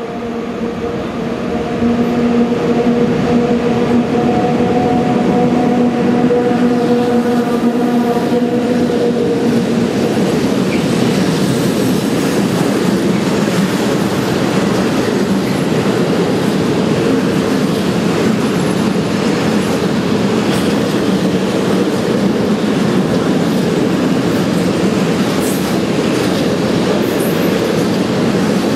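PKP Cargo freight train hauled by ET41 and ET22 electric locomotives passing at speed. For about the first ten seconds the locomotives give a steady whine of several held tones. Then the loud, even rumble and clatter of the open freight wagons' wheels on the rails takes over.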